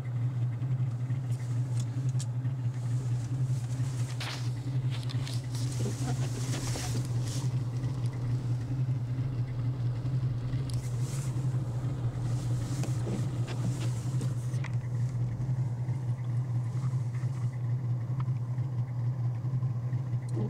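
A car engine runs at a steady, unchanging low drone while driving through deep snow. Brief hissing swishes come a few seconds in and again around the middle.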